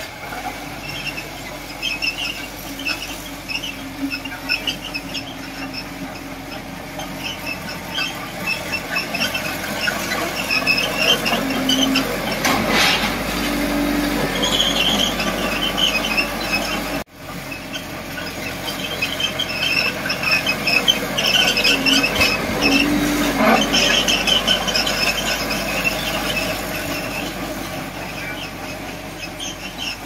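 Crawler bulldozer's steel tracks squealing as it works, a string of repeated high squeals over a low diesel engine hum. The sound drops out for an instant about halfway through, then carries on.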